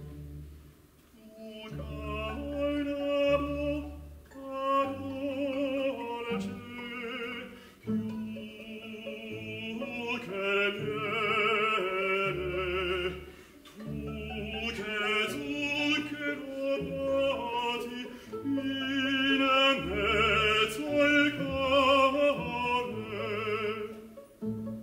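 A male opera singer sings a serenade in Italian with strong vibrato, in phrases separated by short breaks. He is accompanied by plucked strings and a small orchestra.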